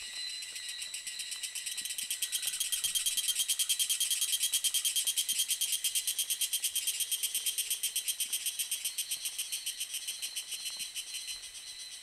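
Tanna viridis cicada singing: a high, rapidly pulsing buzz that swells over the first few seconds and then slowly fades.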